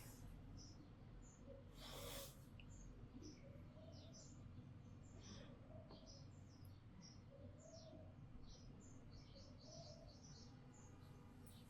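Near silence with faint, scattered high chirps of small birds, and one short rustle about two seconds in.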